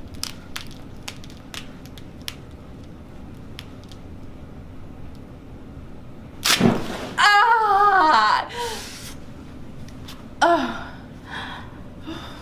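A sharp thud as the chiropractor pulls the Y-strap to decompress the spine, followed at once by the woman patient's loud, wavering cry of "Ah!" lasting about a second, then a shorter falling groan a few seconds later.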